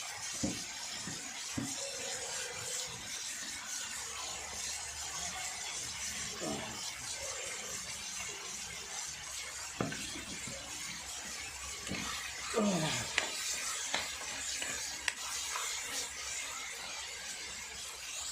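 Food sizzling and simmering in a pan as a steady hiss, with scattered clicks and scrapes of a spoon stirring. A couple of short squeaky sounds fall in pitch near the middle and about two-thirds through.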